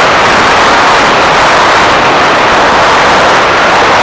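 Loud, steady rush of airflow and engine noise picked up by a camera mounted on a radio-controlled model jet in flight, as it turns to line up with the runway.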